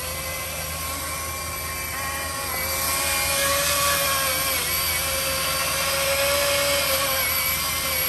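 Battery-powered Milwaukee chainsaw running with a steady electric whine, cutting into a queen palm trunk; about two and a half seconds in the sound gets louder and rougher as the chain bites into the wood.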